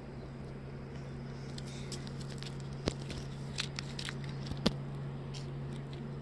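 A steady low hum with a few sharp clicks over it, the two loudest about three seconds in and near five seconds.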